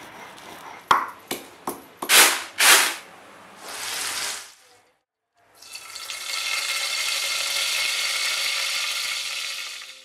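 Curry leaves sizzling in hot oil in a pan: a steady sizzle starting a little after halfway, following a brief silence. Before it, a few sharp clicks and two loud bursts of noise.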